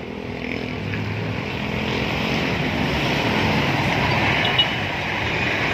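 A motor vehicle's engine running nearby amid street traffic, a steady low hum under road noise that grows louder over the first couple of seconds.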